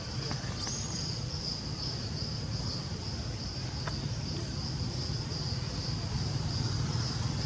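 Steady high-pitched insect chorus, a continuous pulsing trill, over a low rumble.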